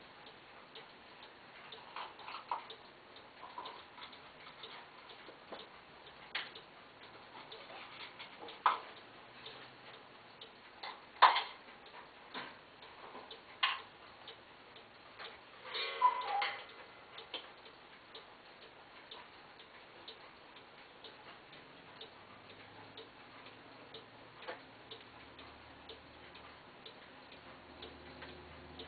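Paragon rolling ball clock running: chrome steel ball bearings clicking on its wooden tracks, scattered light ticks with a few sharper clicks, the sharpest about eleven seconds in, and a short rattling run of clicks about sixteen seconds in.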